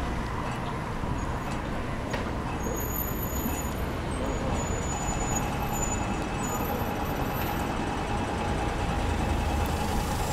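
City street traffic: a steady low rumble of cars and buses, with a faint steady whine from about halfway through and a taxi van driving past close by near the end.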